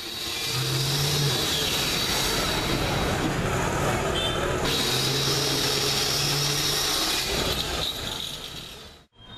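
Steady background din from the surroundings. A low hum comes in briefly near the start and again for about two seconds in the middle.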